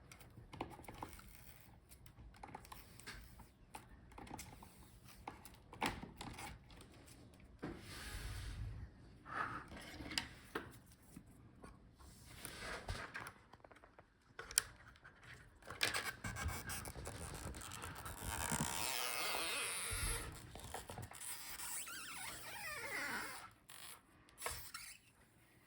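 Stretch-release adhesive strips being pulled out from beneath a laptop LCD panel: faint scraping and rubbing with scattered light clicks of handling, and a longer steady stretch of rubbing noise past the middle.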